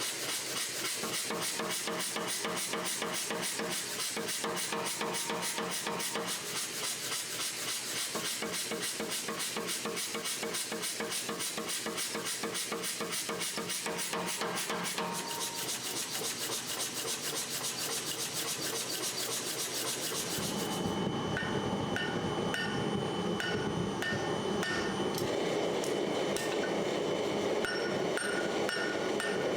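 Fast, even metalworking strokes, several a second, rasping against steel for about twenty seconds. Then irregular hammer blows on metal with short ringing tones.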